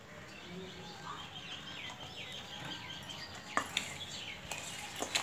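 Birds chirping in a quick run of short, falling calls. A metal spoon then clinks sharply against a steel bowl a few times from about three and a half seconds in; these clinks are the loudest sounds.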